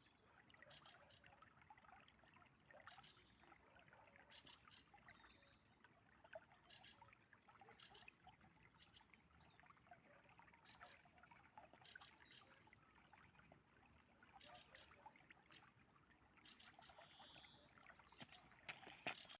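Faint trickling and lapping of river water, a fine crackle of small ticks, with a louder click near the end.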